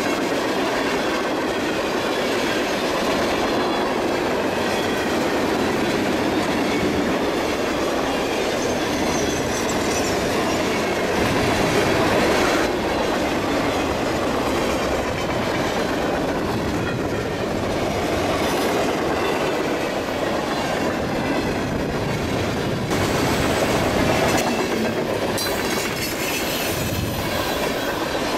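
Freight train cars rolling steadily past: steel wheels rumbling and clattering on the rails, swelling a little twice as cars pass.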